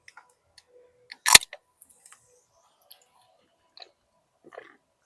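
Someone eating crispy fried chicken close to the microphone: scattered small crackles and mouth sounds of chewing, with one loud sharp crunch or knock about a second in.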